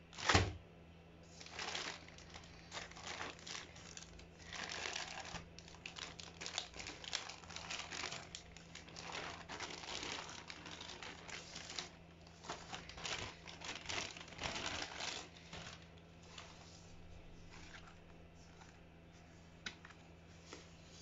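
Clear plastic polybag crinkling in irregular bursts as it is handled and pulled off a backpack, after a sharp knock at the very start. The crinkling dies down to occasional quiet rustles for the last few seconds, over a steady low hum.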